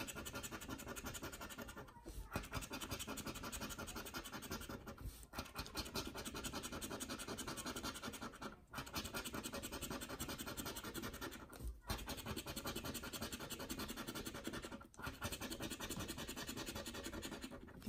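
Plastic scratcher scraping the coating off a scratch-off lottery ticket: rapid, steady scratching with brief pauses about every three seconds.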